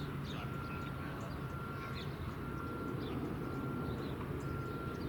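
Backup alarm of a construction vehicle beeping at one steady pitch about once a second, over a steady low rumble of machinery and traffic. A few faint bird chirps are mixed in.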